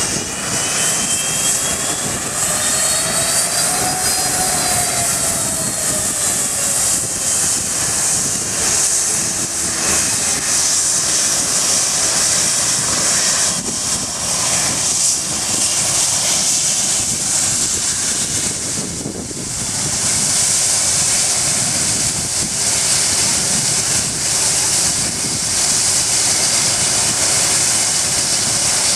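Boeing 757 jet engines running at taxi power as the airliner turns close by: a loud steady rushing hiss with an engine whine that rises and then falls in pitch in the first few seconds.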